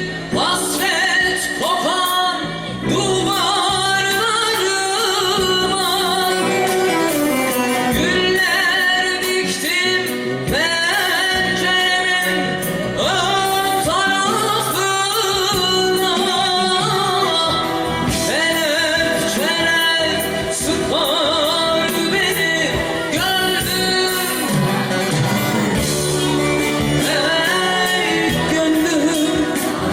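A woman singing a Turkish folk song (türkü) with instrumental accompaniment, her voice moving in wavering, ornamented runs.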